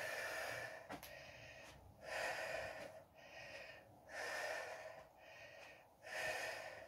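A woman breathing audibly in a steady rhythm while exercising, with a stronger breath about every two seconds and a fainter one between.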